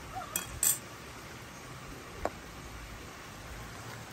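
Stainless steel bowls of stew clinking as they are handled and set down: two quick metallic clinks about half a second in, then one more with a short ring a little after two seconds.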